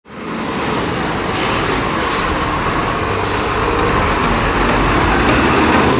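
Heavy diesel engines of a sand-loaded dump truck and a wheel loader running steadily, with three short hisses of air, typical of a truck's air brakes, about one and a half, two and three and a half seconds in.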